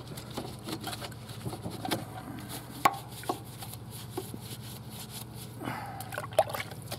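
Boar's hair detail brush scrubbing degreaser into the oily engine and frame of a lawn tractor: irregular brushing strokes and light taps, with a sharper knock or two about three seconds in, over a faint low steady hum.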